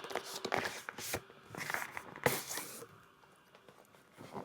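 Keyboard box packaging being opened by hand: irregular tearing and crinkling rustles with a few sharp clicks, going quieter about three seconds in.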